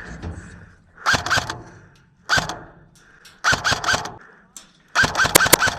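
Airsoft gun firing in short bursts: a quick string of three shots about a second in, a single shot, another string of three, and a longer burst of about five shots near the end.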